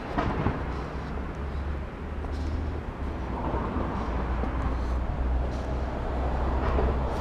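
Outdoor street ambience heard while walking: a steady low rumble of traffic and wind on the microphone, swelling a little about halfway through.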